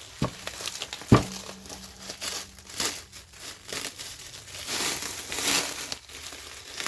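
A package being unwrapped by hand: crinkling and rustling of packing material and tape. There is a sharp knock about a second in, and louder rustling in the second half.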